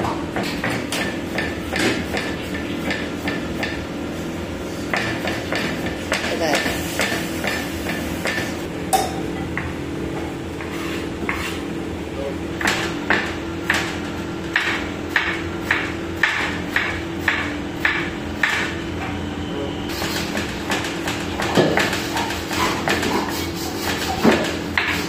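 Chef's knife chopping vegetables on a plastic cutting board: a long run of sharp knife taps, settling into about two a second at times, over a steady hum.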